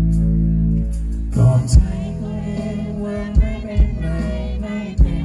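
Live pop band music with a male singer singing into a microphone. A low chord is held for about the first second, then the band comes in with a few drum hits under the voice.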